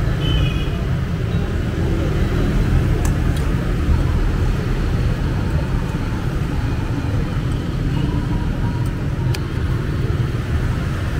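Steady rumble of passing road traffic, with a few faint light clicks.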